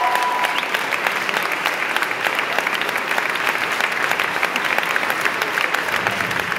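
Concert-hall audience applauding steadily after a sung aria, a dense patter of many hands clapping.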